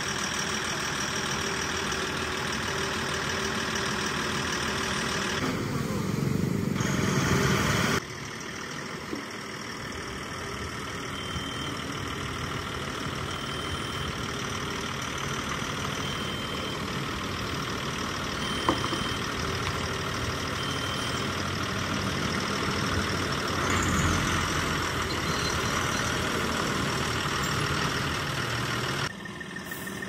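Heavy diesel engine of construction equipment running steadily, with abrupt changes in level about eight seconds in and near the end. Faint short beeps repeat about every two seconds in the middle.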